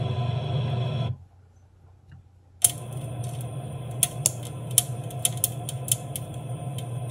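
Coffee beans cracking as they roast in an air fryer: sharp, irregular pops over the steady hum of the fryer's fan. The sound cuts out for about a second and a half near the start, then comes back with the pops.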